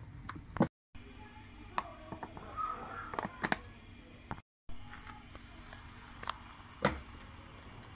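Kitchen clatter of a metal spoon clinking and knocking against a bowl and pan, with a brief hiss of hot oil soon after the second cut as a flour-coated chicken leg goes in to fry, and one sharper knock near the end.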